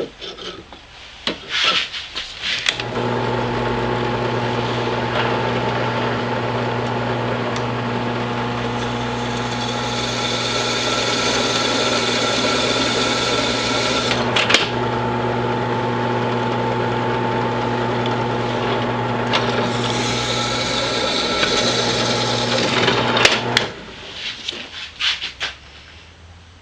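An electric power tool running steadily for about twenty seconds with a rasping cutting noise over its motor hum. It starts after a few clatters of handling about three seconds in and stops a few seconds before the end, followed by more clatters.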